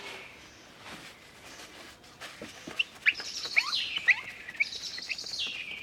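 A small songbird singing: sharp quick chirps and a fast trill that drops in pitch, louder from about halfway in.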